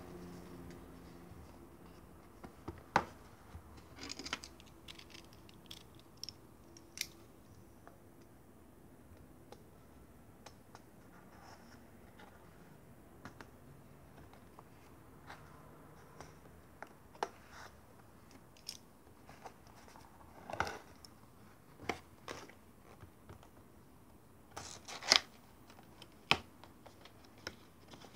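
Cardboard retail box being handled and turned over on a wooden table: scattered taps, light scrapes and a few sharp clicks of fingers and box edges, the loudest about three seconds in and again late on.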